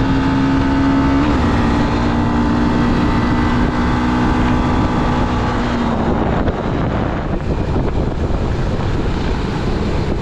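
Honda 300 cc single-cylinder motorcycle engine running steadily under way, its pitch shifting briefly a little over a second in. After about six seconds the engine note fades into a rush of wind noise on the microphone.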